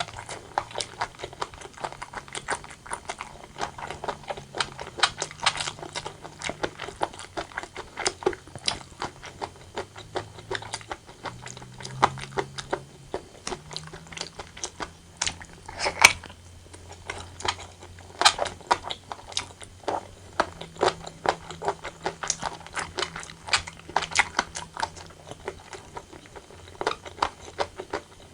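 Close-miked eating sounds of braised pork belly and white rice: chewing and mouth smacks in many short, irregular clicks, one louder smack about halfway through.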